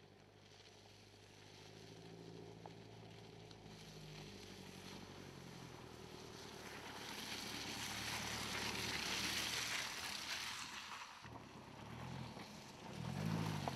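Mercedes-Benz C-Class All-Terrain's four-cylinder engine pulling at low revs as the car crawls along a leaf-covered dirt track, with tyre noise over leaves and gravel. The sound grows louder as the car comes closer and passes about two-thirds of the way in. Near the end the engine note rises and falls again.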